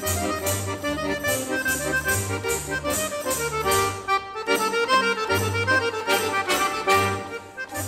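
Background instrumental music with a steady beat and a moving bass line.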